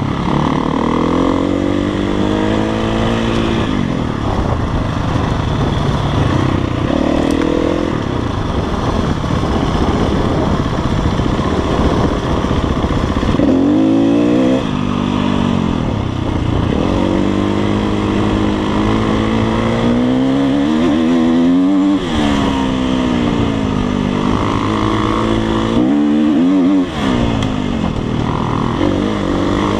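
Dirt bike engine under way, its pitch rising and falling with the throttle, with the throttle snapped shut briefly a few times, about halfway through and again near the end.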